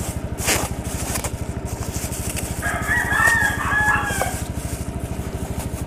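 A rooster crows once, about three seconds in, over a motorcycle engine idling with a steady, even beat.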